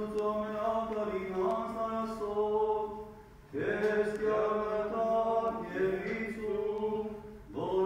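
A man's voice singing Armenian liturgical chant in long held notes over a steady low tone, pausing for breath twice, about three seconds in and near the end.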